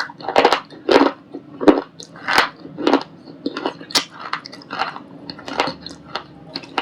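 White ball-shaped shale stone being bitten and chewed, a run of sharp crunches about two a second that grow softer after the first few seconds.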